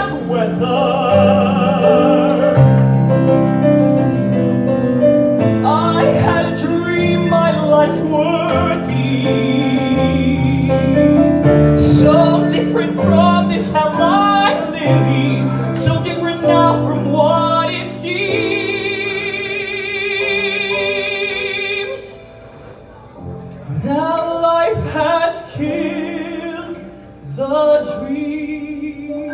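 Male singer performing a ballad in a full, belted voice with a grand piano accompanying. About two-thirds of the way through he holds a long note with vibrato, then the singing falls back to softer phrases.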